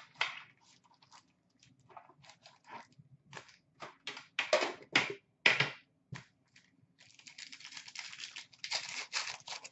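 Hands handling an Upper Deck hockey card tin and its foil card packs: scattered clicks and rustles as the packs are taken out and stacked. From about seven seconds in comes a dense crinkling as a pack's foil wrapper is torn open.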